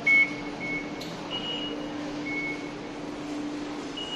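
Short electronic beeps from Skytrain station fare gates, sounding one at a time at two different pitches; the first, right at the start, is the loudest. A steady low hum and station background noise run underneath.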